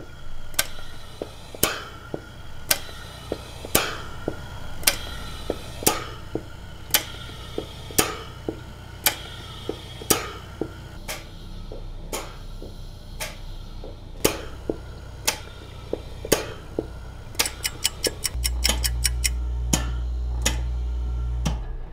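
Homemade Arduino gas mixer cycling as it meters helium: relays and valves click sharply about once a second over the steady hum of its hermetic compressor pump. Near the end a fast run of clicks comes, then a louder steady hum.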